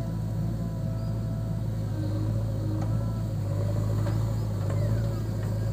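Diesel engines running with a steady low drone: a JCB 3DX backhoe loader at work loading soil, with a Swaraj tractor beside it.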